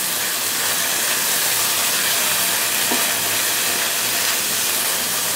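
Shrimp curry sizzling steadily in the pan on medium heat, a constant hiss from the oil that has separated out of the masala as the dish finishes cooking.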